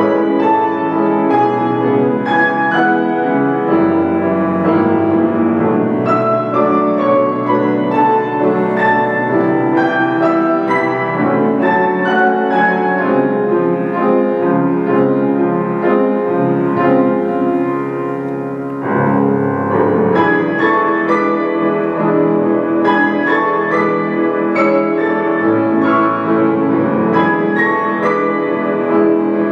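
Grand piano played four hands: a flowing duet of many quick, overlapping notes over sustained chords. It turns briefly softer a little past halfway, then picks up again.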